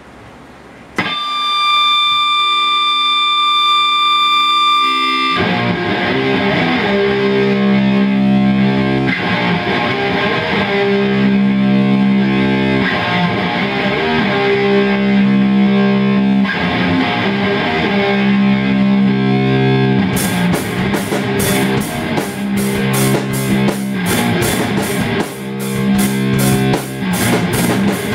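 Distorted electric guitar played through an amp: a chord rings out about a second in, then a slow riff of long, held chords starts a few seconds later. About two-thirds of the way through, a steady high ticking joins at about three beats a second.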